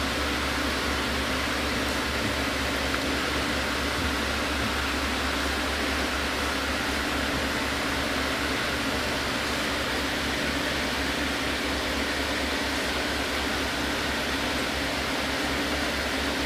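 Aquarium filter running: a steady low hum over a constant hiss.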